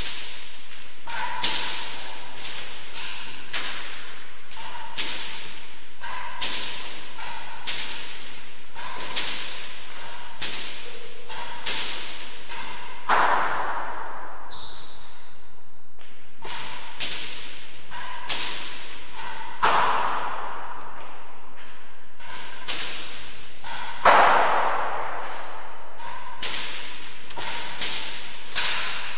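Racquet-sport rally in an enclosed court: a hard ball cracking off racquets, walls and floor in quick succession, each hit ringing in the hall, with a few louder hits among them.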